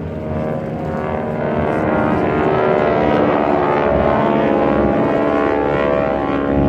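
Single-engine propeller airplane flying overhead. Its engine drone builds about a second or two in, holds loudly, then begins to fade near the end as it passes.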